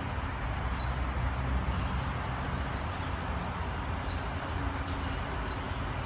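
Electric suburban train approaching, still some way off: a steady low rumble and hiss of wheels on the rails.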